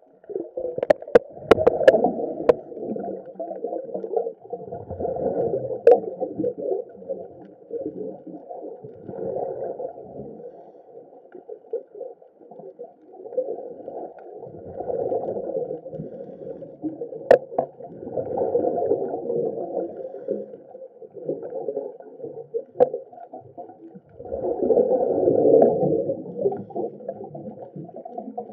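Muffled underwater water noise heard through a camera's waterproof housing: sloshing and bubbling that swells and fades every few seconds. A cluster of sharp clicks comes near the start, with a few single clicks later.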